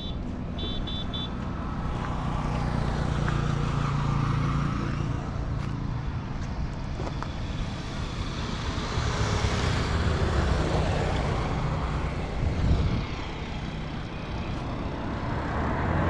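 Road traffic noise: a steady low motor-vehicle engine hum with tyre and road noise that swells and fades as vehicles pass. A few quick short high-pitched beeps sound in the first second or so.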